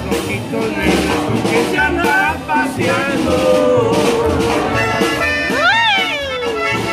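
Live norteño-style band playing close by: accordion, guitar and upright bass with a man singing. Near the end a voice slides up and falls back down in a long cry.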